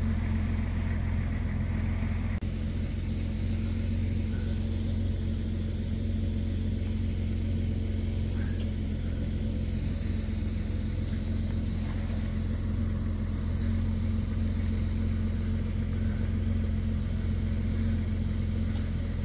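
An engine idling, a steady low hum with no change in speed.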